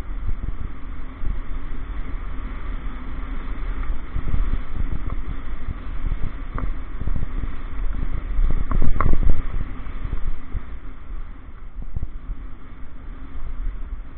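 Downhill mountain bike rolling down a gravel track: a steady low rumble of tyres on loose stones with constant rattling. A few sharp knocks stand out, the loudest a cluster about nine seconds in.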